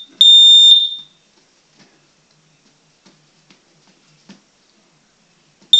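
Combination smoke and carbon monoxide alarm sounding on test in its fire pattern: one loud, high-pitched beep lasting under a second, ending a group of three, then a pause of about four seconds with only faint ticks, and the beeping starting again right at the end.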